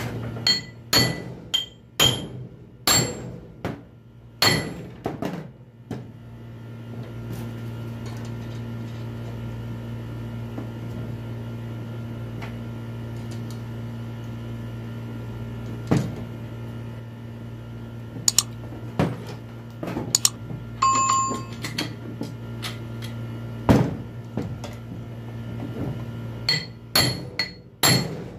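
Metal tools and copper heater elements being handled and set down on a wooden workbench: sharp knocks and clinks, several in quick succession at the start and again near the end, over a steady low hum.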